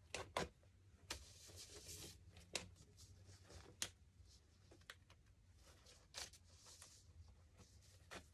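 Faint, scattered clicks and fabric rustles from scissors prying open a small pillow's stitched seam and pulling the threads apart.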